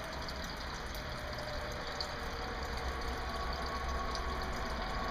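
Small garden water fountain running, a steady splash of falling water, with a low steady hum underneath.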